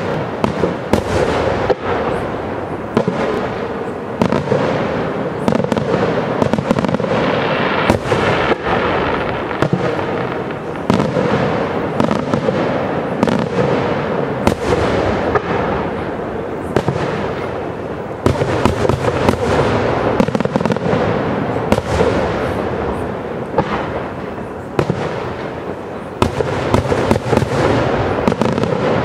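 Aerial firework shells bursting in quick succession: many sharp bangs over a continuous echoing rumble.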